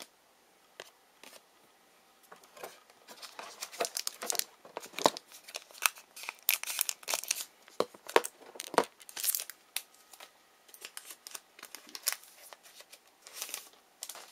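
Wrapper of a Panini Past & Present basketball card pack being torn open and crinkled: a dense run of sharp crackles for several seconds, thinning out to a few scattered crinkles near the end.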